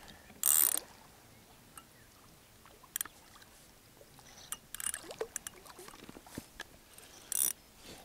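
Short splashes of water from a hooked grass carp thrashing at the surface while it is played. The splashes come four times or so, the loudest about half a second in and another near the end.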